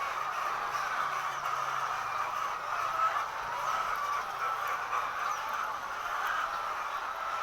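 Steady chorus of many laying hens clucking and chattering at once, a dense, even hubbub with no single call standing out.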